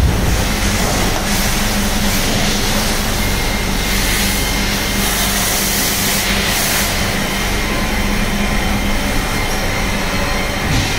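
Steady drone of running machine-shop machinery: a low hum under a noisy wash, with a thin high whine joining about three seconds in.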